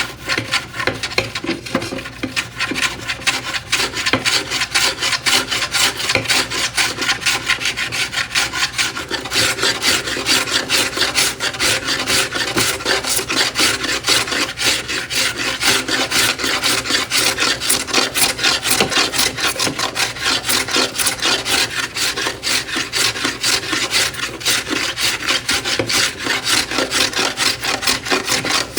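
Rapid, even back-and-forth strokes of an abrasive hand tool rubbing over the wooden toolbox, smoothing rough edges and ragged holes.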